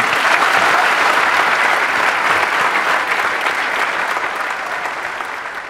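Audience applauding, a dense clapping that dies down toward the end.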